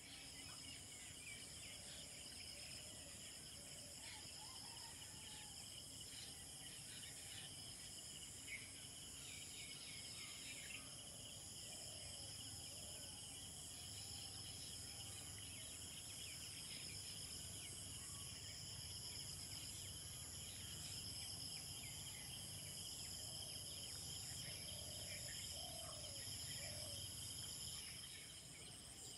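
Faint dawn chorus of insects trilling steadily in several high pitches, with scattered short chirping calls beneath.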